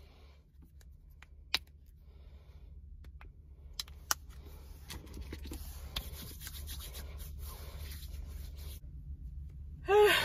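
Rubbing and scratching of a phone being handled against the microphone, with a few sharp clicks in the first half, over a low steady hum in a car cabin. Near the end a short, loud vocal sound.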